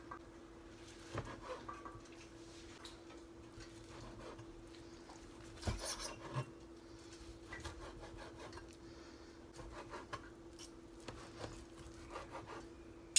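Kitchen knife slicing boiled chicken breast on a plastic cutting board: soft scraping strokes with the odd tap of the blade against the board, a louder cluster about six seconds in. A faint steady hum runs underneath.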